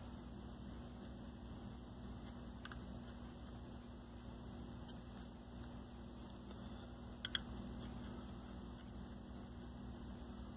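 Low steady electrical hum over quiet room tone, with a faint click about two and a half seconds in and a sharper one about seven seconds in.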